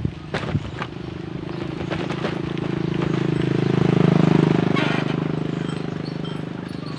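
Engine of a passing motor vehicle: a steady low drone that grows louder to a peak about four seconds in, then fades away. A few sharp knocks in the first second.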